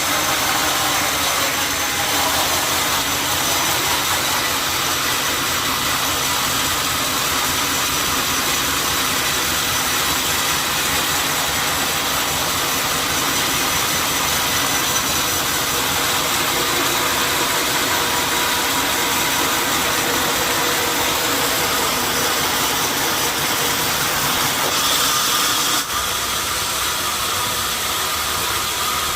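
Sawmill machinery running steadily: a loud, even mechanical noise with a faint steady whine, dipping briefly near the end.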